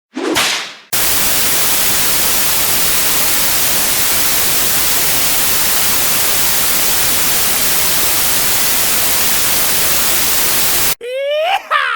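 Steady white noise, an even hiss at constant level for about ten seconds, that cuts off abruptly. It is preceded by a short falling whip swish at the start, and a shouted "yeehaw" begins near the end.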